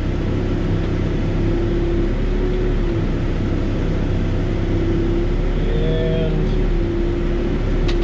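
Backhoe's diesel engine running steadily under load with a steady hydraulic whine, heard from inside the cab as the boom and bucket work in the trench. A faint click near the end.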